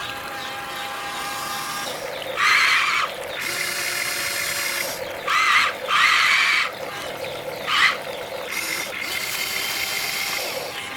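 Electric motors of a Huina RC excavator whining steadily, with four louder, higher whines in short bursts of up to about a second as the machine works under load.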